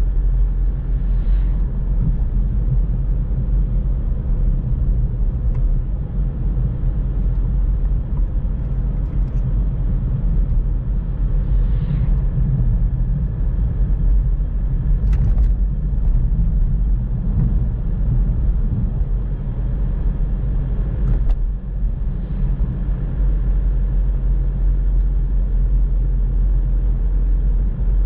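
Car driving along a country road: a steady low rumble of engine and tyres on tarmac. A few brief whooshes of passing traffic come through, the first about a second in, and there are a couple of short sharp knocks in the middle.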